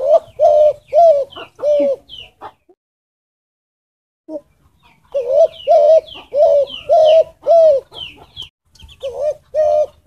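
Spotted dove (derkuku) cooing in repeated phrases of short, low coos. There is a silent pause of about two seconds a third of the way through before it coos again. Faint high chirping sounds behind the coos.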